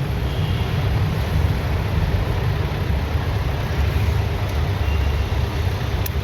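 Steady low rumble of a running engine, even and unbroken throughout.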